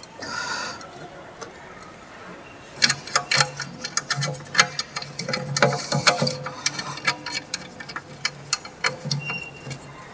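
Irregular metallic clicks and taps of a nut and bolt being done up by hand, fastening a steel paper-roll stand to a steel base plate.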